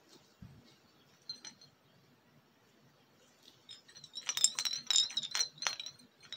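Glass separatory funnel being shaken by hand to mix the layers in an extraction, its glass stopper clinking and ringing in a quick run of sharp clinks from about four seconds in. A soft thump and a small click come earlier, as the funnel is stoppered and picked up.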